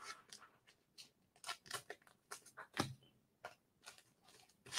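Faint crinkling and ticking of a plastic cello-pack wrapper and trading cards being handled: a dozen or so short, separate crackles spread irregularly.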